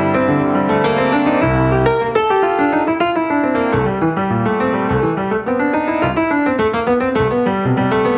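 Piano playing a flowing passage of many notes, with a deep bass note struck about a second and a half in.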